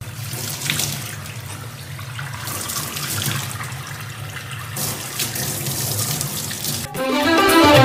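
Water from a faucet running into a stainless-steel sink, splashing as it falls over a baby chimpanzee's hands. Music comes in about seven seconds in.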